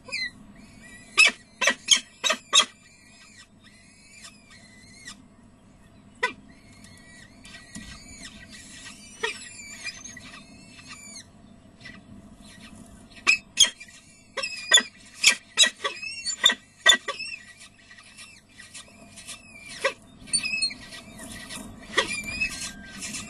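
Peregrine falcon chicks begging while being fed, a stream of thin, high-pitched squeaky calls in bouts. Sharp clicks are scattered among the calls, loudest in a cluster just after the start and again in the middle. A steady low hum runs underneath.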